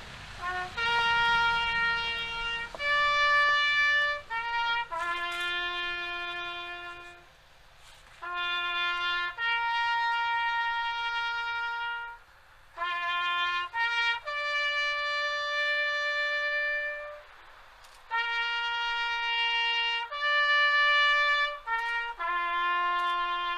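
Solo trumpet playing a slow memorial call: long held notes, each phrase opened by a couple of short quick notes, with brief pauses between the phrases.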